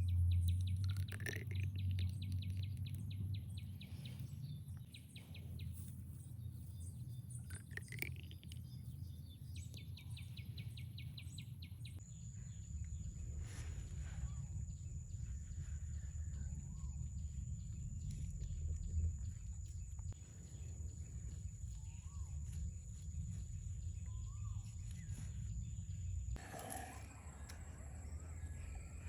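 Outdoor nature ambience: birds chirping and a rapid high trilling over a steady low rumble. The background changes abruptly twice, about twelve seconds in and again near the end.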